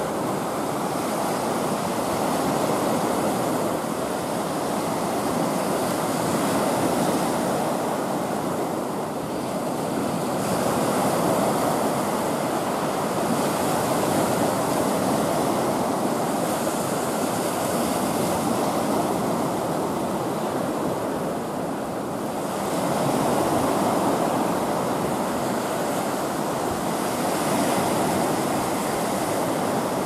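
Sea surf: small waves breaking and washing up a sandy beach, a steady hiss that swells and eases every few seconds.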